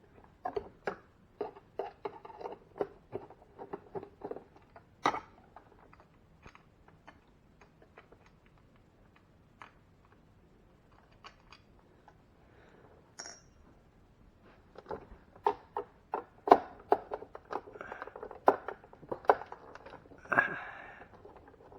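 Irregular small clicks, taps and rattles of hands working on a refrigerator's plastic ice maker assembly and its screws. They come in two busy spells, one at the start and one near the end, with a few scattered clicks between.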